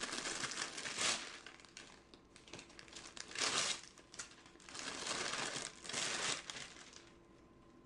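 Gift packaging being crinkled and torn open by hand, in several rustling bursts: the strongest come about a second in, around three and a half seconds in, and from about five to six seconds in. The rustling stops about seven seconds in.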